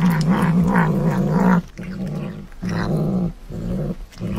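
Tabby kitten growling while it eats, a low wavering growl in several bursts with short breaks between them.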